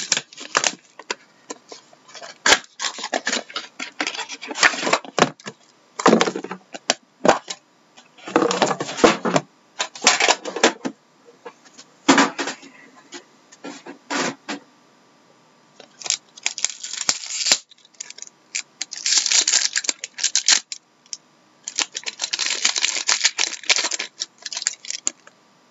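Plastic shrink-wrap and wrapper crinkling and tearing in bursts, with sharp cardboard clicks and knocks, as a sealed box of trading cards is unwrapped and opened and the pack's clear plastic wrapper is torn open near the end.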